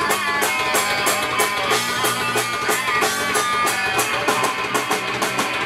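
Live rock band playing through a PA: electric guitars and bass guitar over a drum kit keeping a steady beat with regular cymbal hits.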